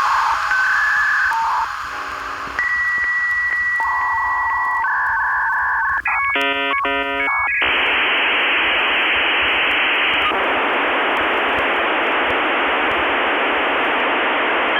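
A string of steady electronic tones and quick chopped beeps, then from about halfway through a steady radio-like static hiss.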